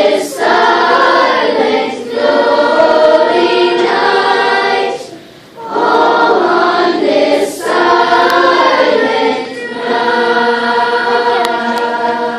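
A choir singing in slow, held phrases of a few seconds each, with short breaks and sung 's' sounds between phrases.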